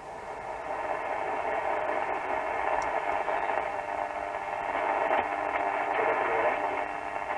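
Bush AC31 valve radio's loudspeaker giving out a steady hiss of static as it is tuned on the medium wave band, growing louder about a second in. The noise is interference, which the restorer puts down to the workshop lights and neighbouring workshops.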